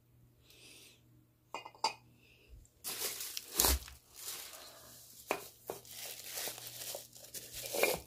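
Bubble wrap crinkling and rustling in the hand as a bubble-wrapped glass tulip shade is handled and unwrapped, starting about three seconds in, after a few light clicks and knocks.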